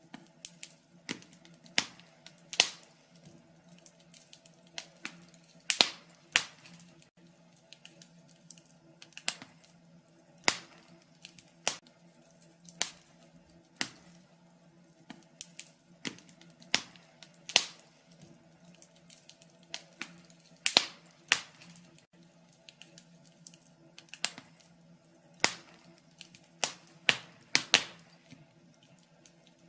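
Log fire crackling: irregular sharp pops and snaps, a few every couple of seconds, over a faint steady low hum.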